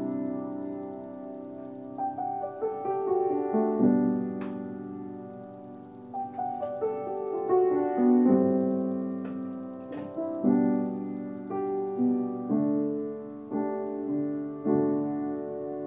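Piano playing a slow passage, notes and chords struck and left to die away, a new one about every second.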